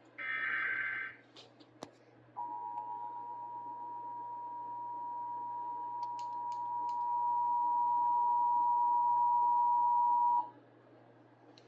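Emergency Alert System tones on broadcast radio: a burst of the SAME digital header lasting about a second, then after a short gap the steady two-tone EAS attention signal (853 and 960 Hz) for about eight seconds, which cuts off sharply. This is the start of a Required Monthly Test of the EAS.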